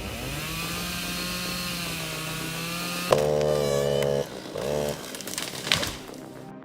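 Chainsaw running at high speed, its pitch rising at the start and then holding steady. About three seconds in the tone jumps louder and holds for about a second before dropping away, with a sharp knock near the end.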